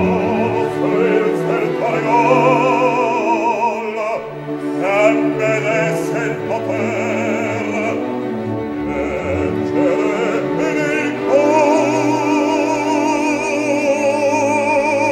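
Operatic bass voice singing long, vibrato-laden notes over an orchestra.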